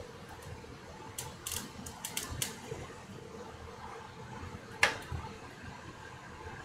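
Light clicks and taps: a quick cluster of them between about one and two and a half seconds in, then a single sharper click near five seconds, over a faint steady hum.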